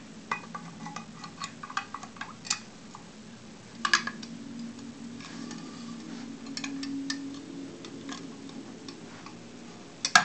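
Small metal clicks and taps as a brass pull handle and its fittings are handled against a hollow aluminium storm-door stile: a quick run of clicks at first, a louder clatter about four seconds in, scattered ticks, and one sharp knock near the end.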